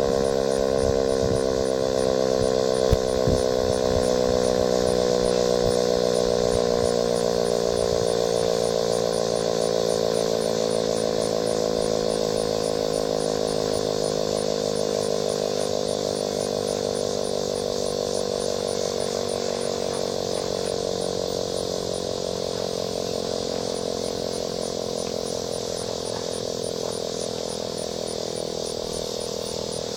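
Sentry 3V8 outdoor warning siren winding down after its test: a chord of steady tones sliding slowly lower in pitch and fading as the rotor coasts to a stop. A single knock sounds about three seconds in.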